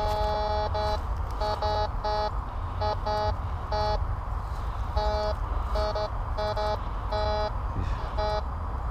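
White's MX7 metal detector sounding its target tone in repeated short beeps as the coil is swept back and forth over a buried target, the signal jumping between a silver and a zinc-penny reading. A steady low rumble runs underneath.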